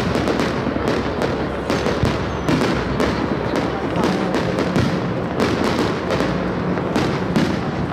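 Aerial fireworks shells bursting in quick succession: many sharp bangs and crackles, closely spaced.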